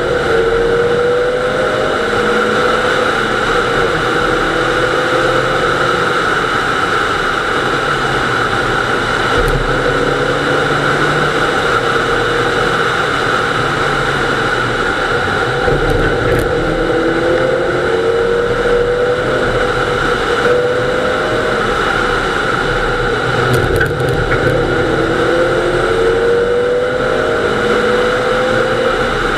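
Nissan Almera GTI rally car's engine running hard, heard from inside the car. Several times the revs climb briefly, over a constant din of road and wind noise.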